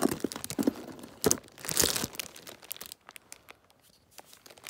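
Packaging crinkling and rustling in the hands as a small item is unwrapped, with a couple of louder bursts in the first two seconds, then only a few light clicks and taps.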